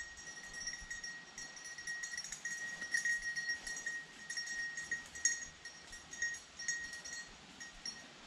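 A hunting dog's collar bell jingling steadily as the dog moves through cover, the ringing swelling and fading as she runs, loudest around three and five seconds in.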